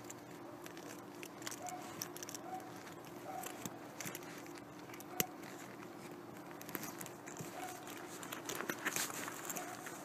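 Hands rummaging in a black leather bag: metal zipper pulls and fittings clicking and rattling, and the leather and its contents rustling, with one sharp click about five seconds in and a busier flurry near the end. A steady low hum runs underneath.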